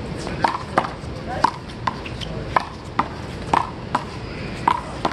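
Rubber handball smacking off players' hands, the wall and the court surface during a rally: a string of sharp smacks, about two a second, some with a short ringing ping.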